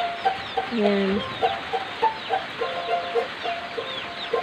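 A violin played by hand in a tune of short, repeated notes.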